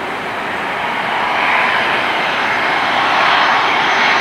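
Twin-engine jet airliner on final approach with its landing gear down, its engines a steady rushing noise with a faint whine that grows louder from about a second in as it comes closer.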